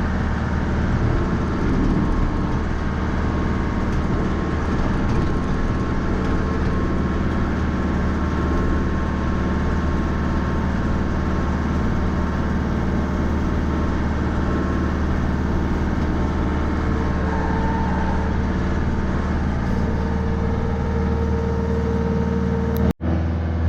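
Mahindra 3550 tractor's 50 hp diesel engine running steadily. The sound cuts out for an instant near the end.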